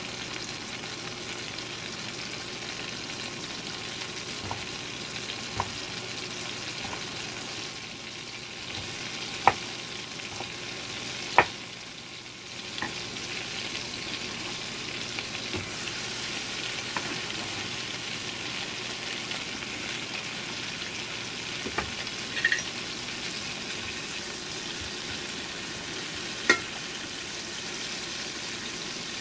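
Butter sizzling and bubbling steadily in a frying pan, with a few sharp knocks from knife work on the cutting board.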